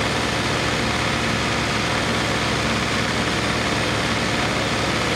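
Diesel tractor engines, a John Deere 5310 among them, running steadily as the two tractors stand hitched rear to rear just before a tug-of-war pull.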